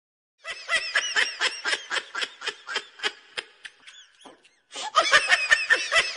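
Laughter in quick repeated bursts, about four a second, starting about half a second in. It breaks off briefly about four and a half seconds in and resumes louder.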